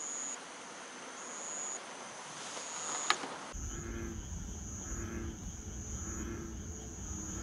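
An insect trilling high and steady in repeated pulses about a second long, with one sharp click about three seconds in. About halfway through a low rumble comes in underneath while the trilling goes on.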